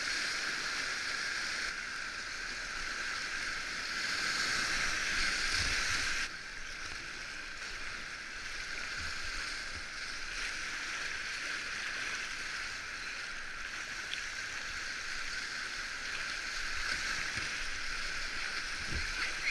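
Whitewater river rapids rushing around a kayak: a steady hiss of churning water, dropping suddenly to a slightly lower level about six seconds in.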